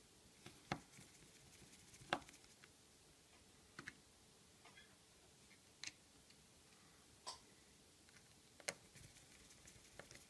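Near silence with faint, scattered small clicks and taps, about six over ten seconds, from a small Phillips screwdriver working the tiny screws of the metal connector plate inside an iPhone 5.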